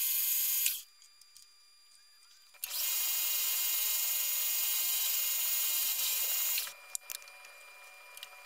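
Small metal lathe running with a steady high-pitched whine. It stops about a second in, a few light clicks follow, then it runs again for about four seconds and stops.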